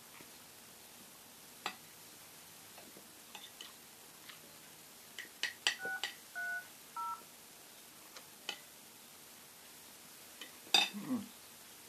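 Phone keypad tones: three short two-note dialing beeps in quick succession a little over halfway through, among scattered light clicks and taps. Near the end a louder knock comes with a brief falling sound.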